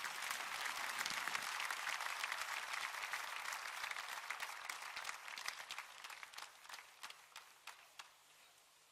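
Congregation applauding after a prayer: a dense patter of many hands clapping that thins to a few separate claps and stops about eight seconds in.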